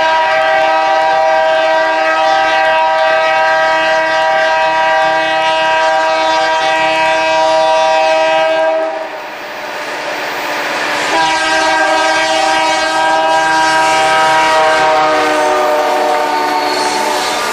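Horn of an SD45-2 diesel locomotive sounding two long blasts, the first about nine seconds and the second about six, over the rumble of the approaching locomotives.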